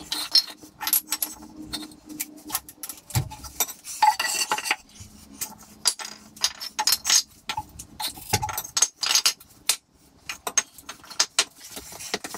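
Irregular clatter of sharp knocks and clinks as wooden timber blocks are struck with a hammer and shifted under the base of a milling machine being lowered. Two heavier thuds come about three seconds in and again about eight seconds in.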